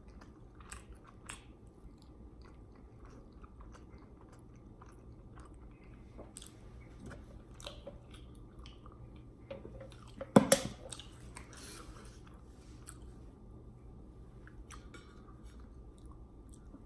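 Close-miked mouth sounds of a person chewing and swallowing a soft tuna sandwich, small wet clicks scattered throughout, with sips from a drink can about eight seconds in. A single sharp knock a little after ten seconds is the loudest sound.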